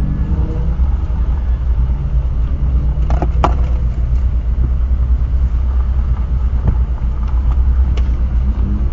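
Steady low rumble heard from inside a stationary car, with passing cars' engines rising in pitch as they pull away near the start and again near the end. There are two sharp clicks a little over three seconds in.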